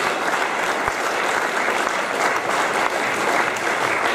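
Audience applauding steadily in a lecture hall at the end of a talk.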